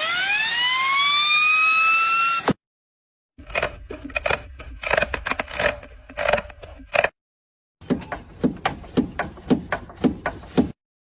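Short clips of abnormal car-part noises. First a whine rises in pitch, levels off and cuts off suddenly. After a gap come irregular clicking and knocking, and after another gap a quicker run of sharp ticks, several a second.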